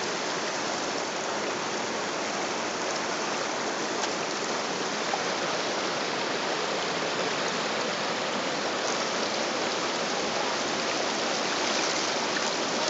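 Shallow stream running over rocks, a steady, even sound of moving water.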